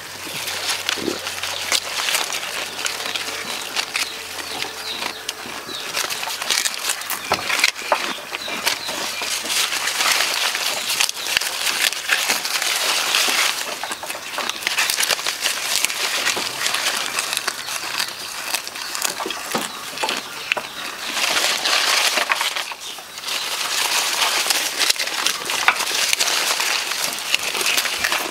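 Goats feeding on a bunch of jackfruit leaves: leaves and twigs rustling and crackling as they are tugged and chewed, with many small crunching bites.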